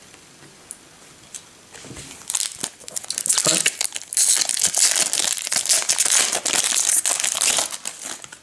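A foil trading-card pack being torn open by hand, its wrapper crinkling in a dense run that starts about two seconds in and goes on until near the end, after a few faint taps.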